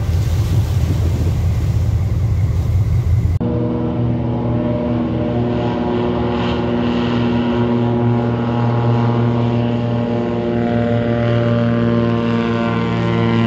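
Single-engine floatplane's piston engine and propeller running steadily at takeoff power, a sustained drone with a strong pitched tone. For about the first three seconds there is a rough rumble of boat engine and water instead, which cuts off abruptly.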